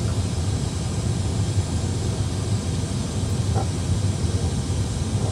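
Steady low rumble and hiss of cockpit noise in an Airbus A320 full flight simulator during an emergency descent from cruise altitude.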